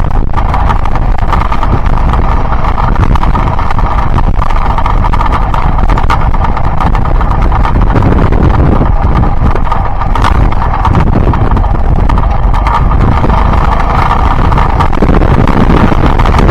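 Yamaha Byson motorcycle's single-cylinder four-stroke engine running steadily while riding, heard from the bike with heavy wind rumble on the microphone.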